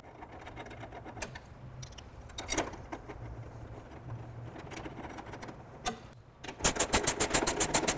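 Ratchet wrench with a 13 mm socket tightening hex-head bolts: faint handling and a few light taps at first, then a fast run of ratchet clicks, about nine a second, over the last second and a half.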